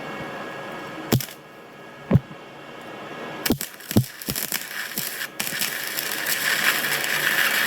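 Flux-core welder arc: a few sharp separate cracks over the first four seconds, then steady crackling and sputtering of the arc from about five seconds in as a weld bead is run.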